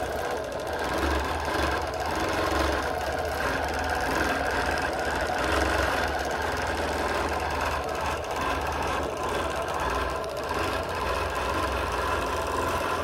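Bernina longarm quilting machine stitching without a break at a fast, even pace, its motor humming under the rapid needle chatter, as it free-motion quilts the fabric.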